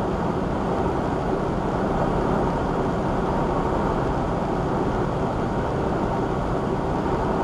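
Steady drone of a semi-truck cruising at about 72 mph, heard inside the cab: engine and tyre road noise, with no sudden change.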